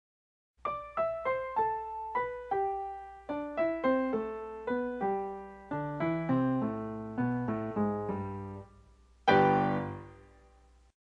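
Piano music: a melody of single notes, each fading after it is struck, with a louder chord about nine seconds in that rings out.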